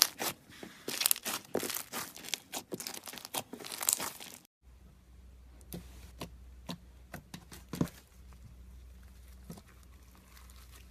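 Slime being squeezed and stretched by hand, crackling and popping in dense rapid clicks. About four and a half seconds in it cuts abruptly to a quieter part with only scattered pops over a low hum.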